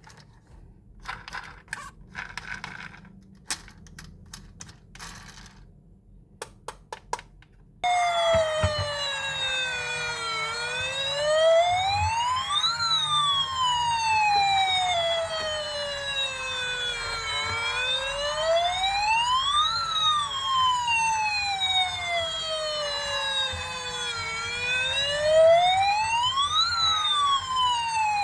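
Small scattered clicks and taps, then about eight seconds in a toy police car's electronic siren switches on suddenly and wails, each slow rise and fall taking about seven seconds.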